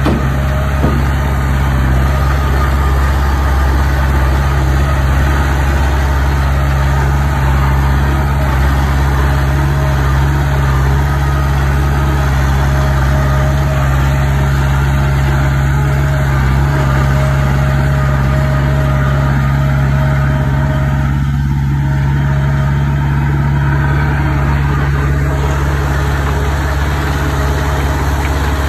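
Heavy construction machine's diesel engine running steadily at an even speed, a low, unchanging drone with no revving.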